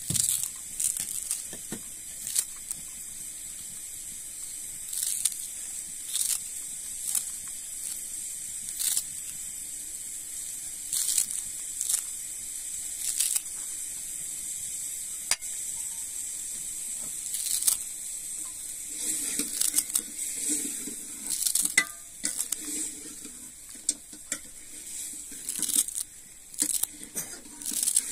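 A small knife cutting through a handful of fresh coriander stems held in the hand, giving short crisp snips every second or so that come quicker and more bunched in the second half.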